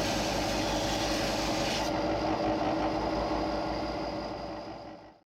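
Steady running of a workshop power tool with an abrasive, rasping grind, fading out just before the end.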